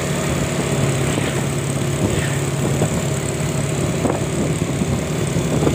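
Vehicle engines running steadily on the move, with road and wind noise.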